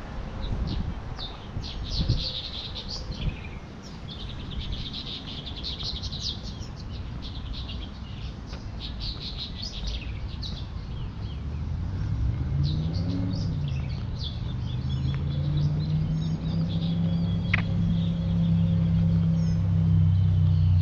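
Birds chirping, many short calls in quick succession through the first half. About halfway in, a motor vehicle's engine comes in: its pitch rises and falls briefly, then it runs steadily and grows louder toward the end.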